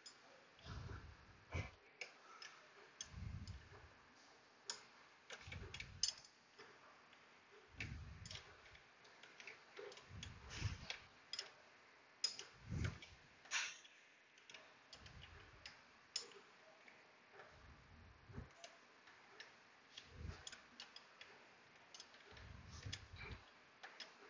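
Faint clicks and light metallic taps of hand tools working on the engine, with soft low thumps about every two and a half seconds.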